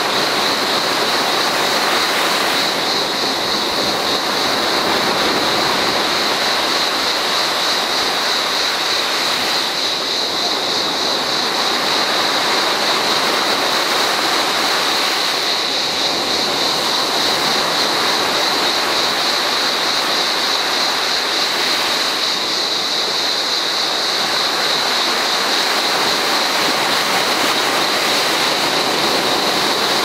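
Small sea waves breaking and washing up a sandy beach, the surf swelling and easing every few seconds, over a steady high-pitched buzz of cicadas.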